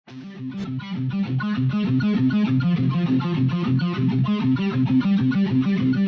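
Music: a fast, repeating plucked guitar riff over bass notes.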